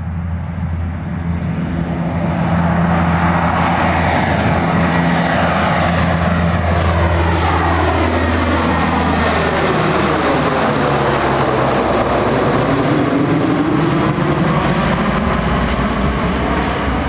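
Military aircraft's engines running loudly as it flies low past, swelling about two seconds in, with a whooshing sweep that slides down and back up in pitch near the middle.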